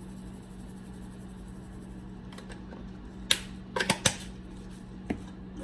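Spice containers and a measuring spoon being handled: a few sharp clicks and taps, the loudest a little past halfway, over a steady low hum.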